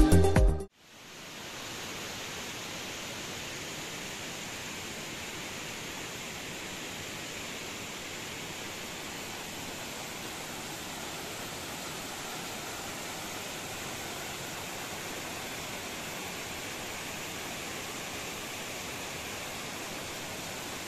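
Electronic intro music cuts off within the first second, followed by a steady rush of muddy runoff water trickling and splashing down over loose rocks of a landslide.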